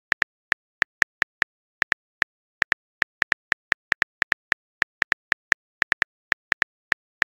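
Phone keyboard key-tap sound effect: a short, dry click for each letter typed, unevenly spaced at about five a second.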